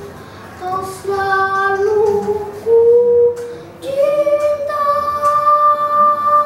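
A young boy singing solo with no accompaniment: a few notes stepping upward, then one long held note from about four seconds in.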